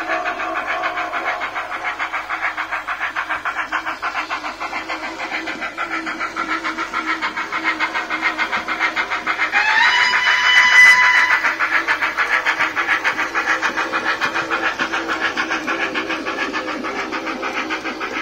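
Steam locomotive chuffing in a steady, rapid rhythm, with a whistle about ten seconds in that rises into a held note for around two seconds.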